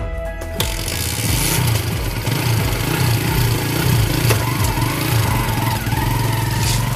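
Motorcycle engine starting about half a second in, then running steadily close by.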